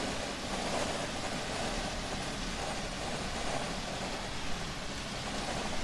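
Steady road and engine noise inside the cab of a semi-truck day cab cruising on the highway.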